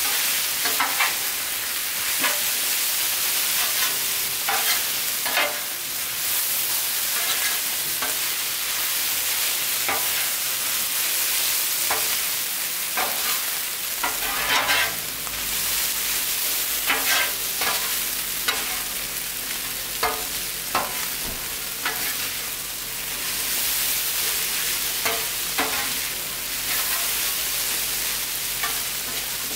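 Noodles, meat and vegetables sizzling on a Blackstone steel flat-top griddle in a steady hiss, while a metal spatula scrapes and taps the griddle surface in an irregular run of short strokes as the food is tossed.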